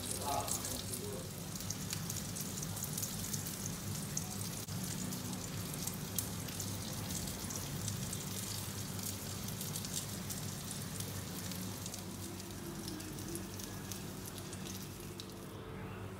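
Food sizzling and crackling as it fries in a pan, over a steady low hum. The sizzle drops away near the end.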